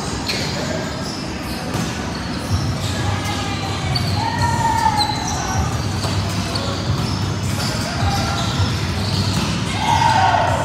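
Volleyball being hit and bouncing on a gym floor, a scattering of sharp impacts, amid players' voices and calls in a large hall.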